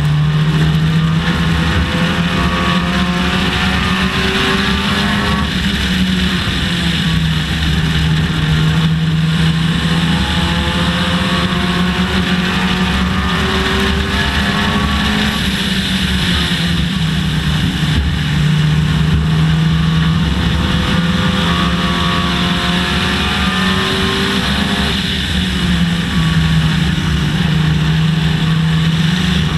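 Dodge Neon race car's four-cylinder engine at racing speed, heard from on board. The engine note climbs under throttle, then drops off and climbs again, over and over, as the car laps the oval.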